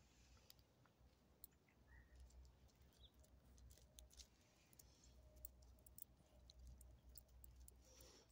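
Near silence, with faint scattered clicks of gravel shifting under a small dog's paws as it sniffs around.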